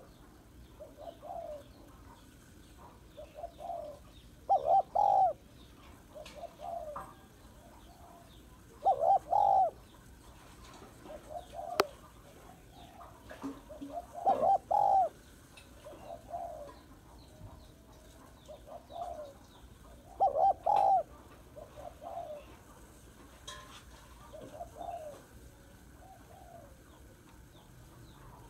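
Spotted dove cooing: a louder two-part coo phrase comes about every five to six seconds, with softer single coos in between. A sharp click sounds near the middle.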